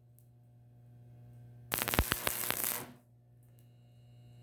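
Arc welder striking an arc on thin sheet metal: about a second and a half in, a loud crackling, sputtering burst that lasts about a second, then stops. It is laid down in short bursts so the thin metal can cool and not melt through. A steady electrical hum sits under it throughout.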